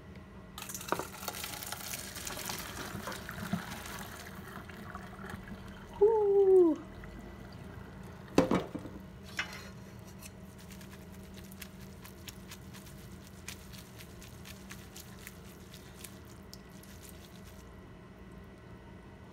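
Hot water and cooked ramen noodles poured from a pot into a stainless-steel colander in a sink: a splashing pour for about four seconds, then scattered drips. About six seconds in comes a short, loud falling squeal, and a sharp knock follows at about eight and a half seconds.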